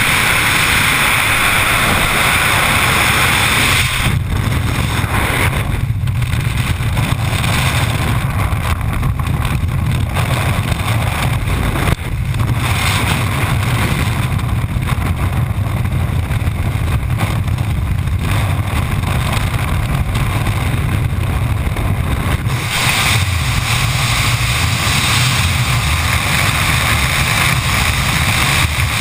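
Freefall wind rushing over a body-mounted camera's microphone: a loud, steady rush with deep buffeting. Its hiss thins about four seconds in and brightens again about three-quarters of the way through.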